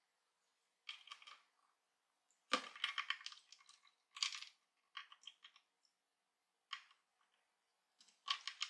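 Ice cubes in a circulating cat water fountain crackling and clicking as they melt in the water, in short irregular bursts of sharp cracks.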